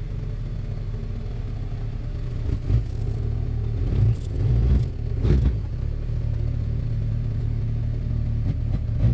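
Old rear-wheel-drive pickup's Cummins diesel engine running while the truck backs a boat trailer over snow, a steady low rumble with a few short swells a few seconds in.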